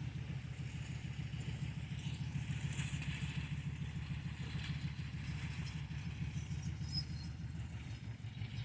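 Tractor engine running steadily with a low, evenly pulsing rumble, with a few faint clicks of machinery clatter.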